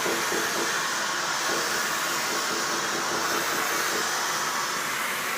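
Electric arc welding on a backhoe bucket: a steady, crackling hiss from the arc as the bead is laid.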